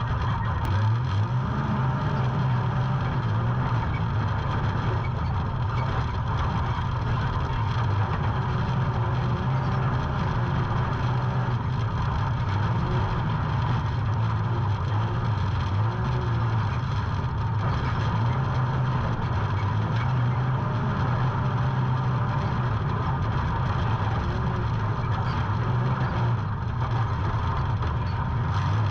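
A UTV engine running steadily for the whole stretch, its low drone holding at much the same pitch with only small rises and dips.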